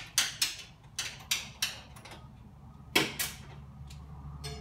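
Several sharp metal clicks at uneven intervals as a 13 mm socket and wrench turn nuts off the feed-roller bearing bolts of a stainless steel mat washer.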